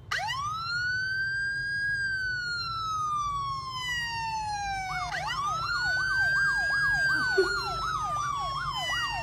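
Electronic emergency-vehicle siren wailing: a long rise then a slow fall in pitch. About five seconds in, a second rising wail starts, with a fast yelping warble of about three sweeps a second over it.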